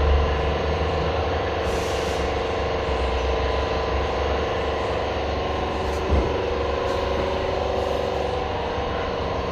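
Steady machine hum with a hiss and a low rumble, with a single knock about six seconds in.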